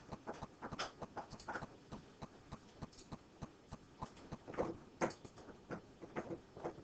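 Computer mouse clicking: a scatter of short, irregular clicks, several a second, a few louder ones about two-thirds of the way in.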